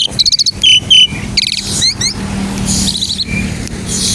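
Asian pied starling singing a varied song: rapid clicking trills and sharp whistled notes early on, a run of quick sweeping slurs, and harsh scratchy chatter in the middle and again near the end.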